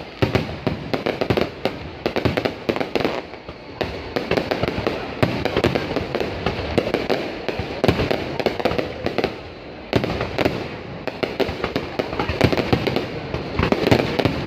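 Fireworks display: a dense barrage of bangs and crackling, one after another without a break.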